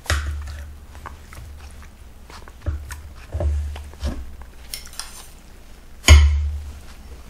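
Metal spoon clinking and scraping against ceramic bowls as a small bowl is tipped out into a bowl of soup, with several dull thumps of bowls on the wooden desk, the loudest near the end.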